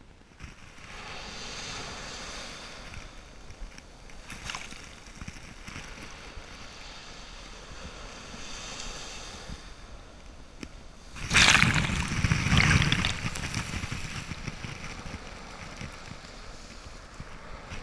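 Small ocean waves breaking and surf washing up the sand, heard from right at the water's edge. About eleven seconds in, a wave rushes in close and loud for a couple of seconds.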